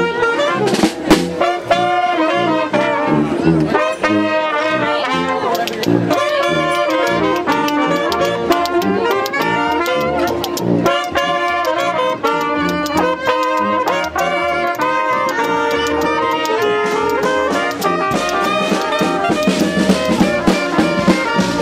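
Live street brass band playing a lively tune: saxophones carry the melody over a sousaphone's bass line.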